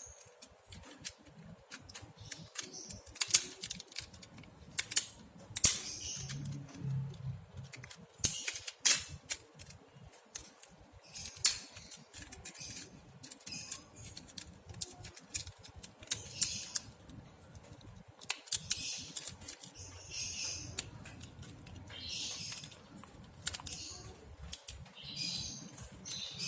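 Irregular sharp clicks and taps mixed with short scraping or brushing strokes, from hand work on a mobile phone's small plastic and metal parts.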